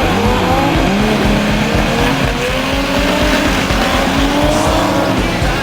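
Chevrolet Omega stock-car racing engines running hard, several cars at once. The engine pitch dips within the first second, as at a gearshift, then climbs steadily as the cars accelerate.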